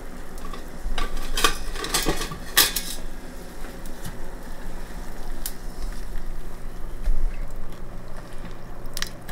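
Kitchen utensils and containers clinking and knocking, a handful of sharp knocks spread out, over the steady sizzle of blueberries simmering in a saucepan.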